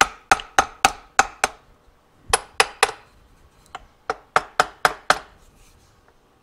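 A mallet tapping a Suzuki TC125's aluminium crankcase, in three quick runs of sharp taps (six, three, then six, about four a second), to help separate the case halves while a case-splitter puller holds them under tension.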